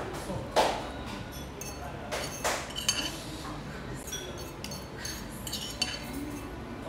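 Metal fork and spoon clinking and scraping against a plate and bowl while eating. A sharp clink comes about half a second in, a few more follow, then lighter taps.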